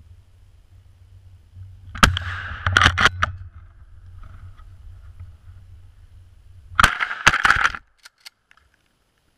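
Two loud shotgun blasts about five seconds apart, each followed by a second or so of knocking and rustling. The sound cuts off about a second after the second blast.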